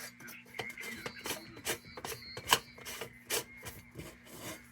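Metal kerosene-heater parts being handled: irregular clicks, taps and light rubbing of metal on metal.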